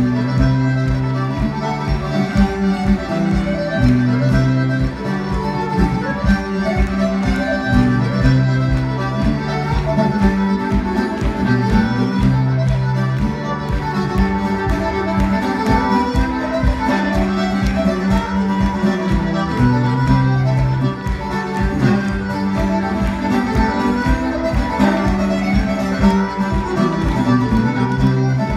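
Lively traditional Irish dance tune played on fiddle with guitar backing, a fast steady beat and a repeating bass line.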